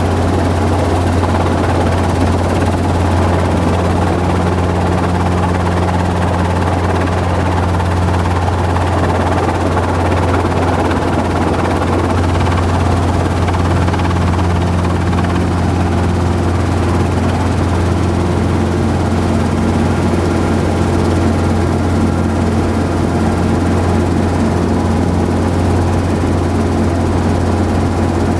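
Helicopter in flight: a steady, loud drone of rotor and engine, with a strong low hum and fainter tones that come and go above it.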